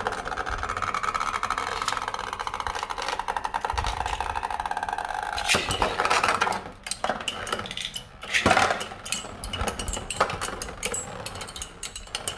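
Beyblade spinning tops whirring and clattering against each other and the walls of a plastic Beyblade stadium: a dense, rapid rattle for the first five seconds or so, then scattered, uneven clacks as the tops slow and stop.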